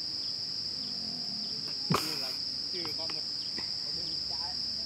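Steady high-pitched drone of forest insects, with one sharp click about two seconds in.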